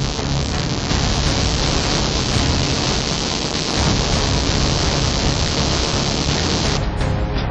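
A steady, loud hiss of static-like noise with a pulsing low rumble. It cuts off abruptly near the end, where music takes over.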